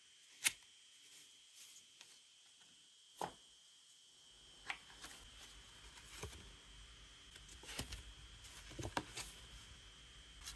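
Gloved fingers handling a paper leaflet and printed cards: scattered soft taps, clicks and rustles, a sharper click about half a second in.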